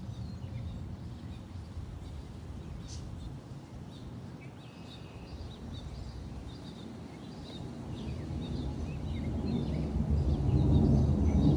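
Outdoor ambience: a steady low rumble of breeze with scattered faint bird chirps. In the last few seconds a low engine rumble swells steadily louder.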